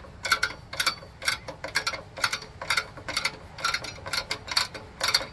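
A quick run of sharp metal clicks, about four a second and some in pairs, from a Phillips screwdriver turning back the spring-loaded speed-adjustment screw on a Craftsman snowblower's 179cc engine to raise its RPM. The engine is not running.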